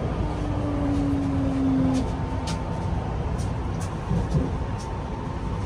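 Metro train running, heard from inside a carriage: a steady low rumble with a thin steady whine and a few light clicks partway through.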